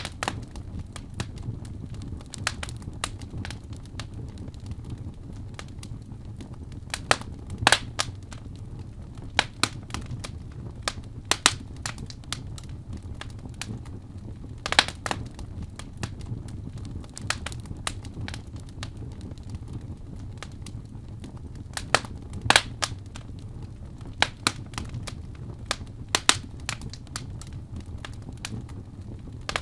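Fire in a fireplace crackling: irregular sharp pops and snaps, a few of them louder, over a steady low rumble of the flames.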